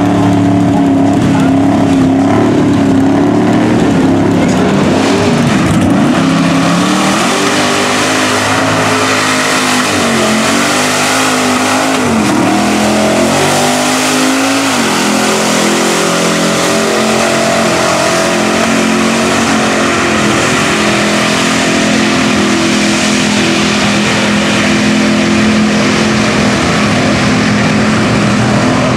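Lifted mud trucks' engines revving hard while their oversized tires churn through deep mud. The pitch sags and climbs again several times with the throttle, over the hiss of mud being flung from the tires.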